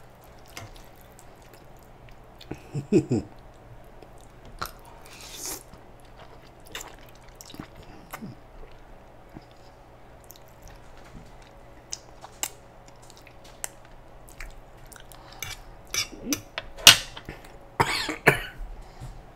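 Close-up mouth sounds of a man eating extra-spicy instant noodles: slurping the strands in, wet chewing and lip smacks, with scattered small clicks. Louder sharp sounds cluster near the end, as the metal fork is set down on the griddle.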